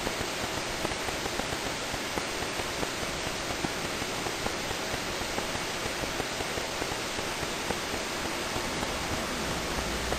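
Steady hiss of background recording noise with faint, irregular crackling ticks.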